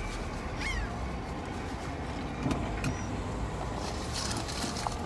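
A steady low vehicle rumble heard through an open car window, with a bird's short falling call about half a second in and a few light clicks later on.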